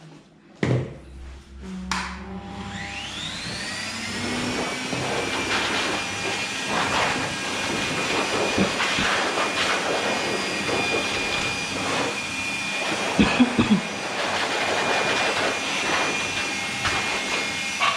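An electric blower motor switched on with a click. Its whine rises as it spins up to speed, then it runs steadily.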